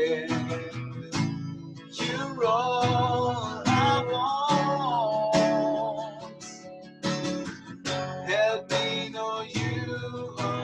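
Background music led by a strummed acoustic guitar, with a melody line that glides in pitch.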